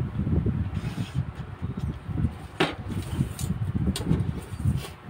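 Metal drafting rulers and an L-square being handled and set down on pattern paper over a table, with a few sharp taps, the clearest about two and a half seconds in, over an uneven low rumble.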